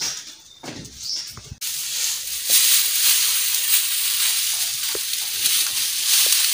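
Bundles of harvested, dried mustard plants rustling and crackling as they are lifted and sorted by hand. The rustling starts suddenly about a second and a half in and runs on as a dense, steady crackle.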